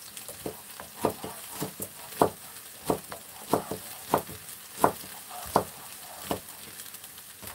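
Kitchen knife chopping vegetables on a wooden cutting board: about a dozen sharp, uneven knocks of the blade striking the board.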